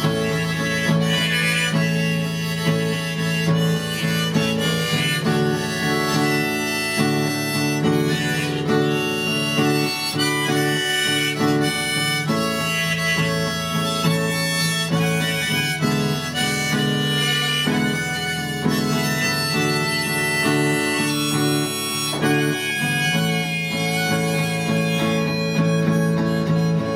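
Blues harmonica playing an instrumental break over guitar accompaniment, held notes with no singing.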